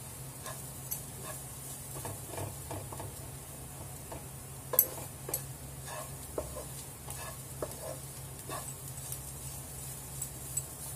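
Wooden spatula stirring and scraping chopped onions frying in a nonstick pan, with a faint sizzle and irregular clicks of the spatula on the pan; the sharpest knock comes about five seconds in. A steady low hum runs underneath.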